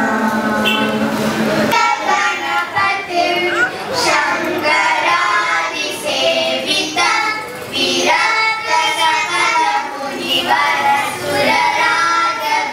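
A group of young girls singing a song together, in phrases with short breaths between them.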